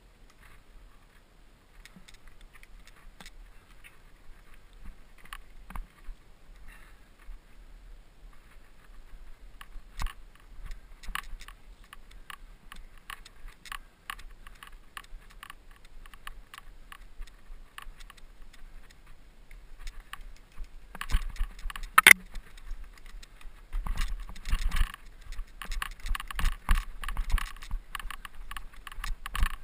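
Mountain bike rattling and clattering over rough trail: quick metallic clicks and jangles, sparse at first, then denser and louder in the last third, with one sharp crack about three-quarters of the way through.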